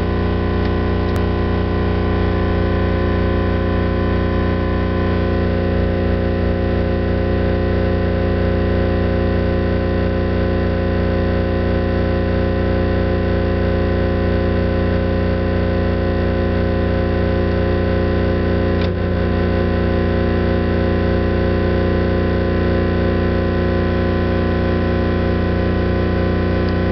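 Victron MultiPlus inverter/charger giving off a loud, steady electrical hum-buzz while charging from mains in charger-only mode, with a brief click about a second in.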